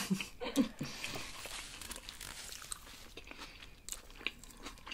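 Chewing of breaded chicken fries: small, irregular crunches and mouth clicks, fairly quiet.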